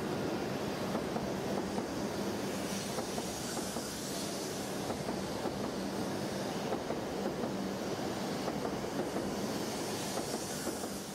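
Shinkansen bullet train running past on an elevated track: a steady rumble of wheels on rail with fine rapid clicking and a steady low hum, and a hiss that swells twice.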